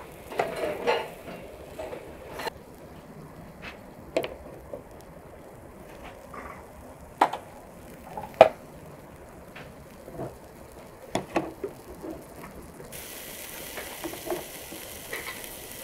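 Kebabs on metal skewers sizzling over a charcoal grill, with scattered sharp metallic clinks as the skewers are handled and turned. A brighter hiss of sizzling comes in near the end.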